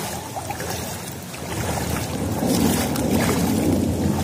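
Shallow floodwater sloshing and splashing as someone wades through it, getting louder about a second and a half in.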